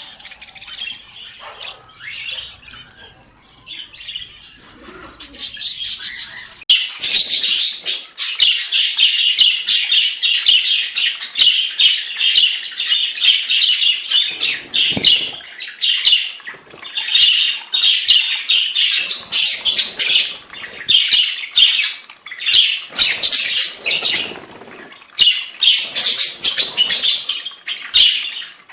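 Budgerigars chattering and chirping busily, with wing-flapping as they bathe; the chatter grows much louder and denser about a quarter of the way in.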